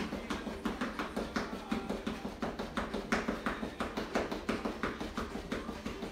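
Quick, steady footfalls or taps on a floor, about four or five a second, from a fast bouncing bodyweight exercise.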